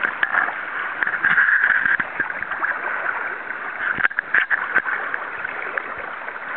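River water rushing steadily, with a few sharp knocks about four seconds in.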